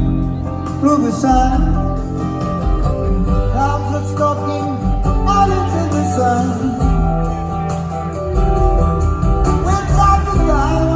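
Live band playing a soft rock ballad, with guitar lines and singing over a steady bass.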